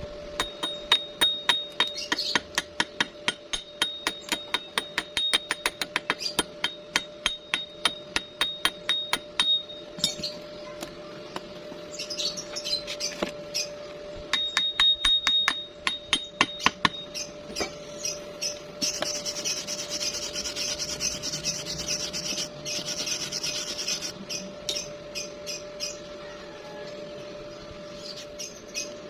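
Chipping hammer knocking slag off a stick weld in rapid metallic taps, about four a second, in two spells. Then a wire brush scrubbing the bead for several seconds.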